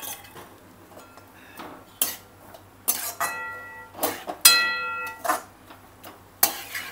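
A metal slotted spoon clanking against a metal kadai: a series of sharp knocks and scrapes, two of which ring on briefly like struck metal, about three and four and a half seconds in.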